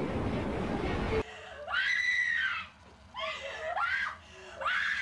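A dense, noisy stretch of sound cuts off abruptly about a second in. Then come three high-pitched screams, each sliding up steeply, holding and dropping away, with short pauses between them.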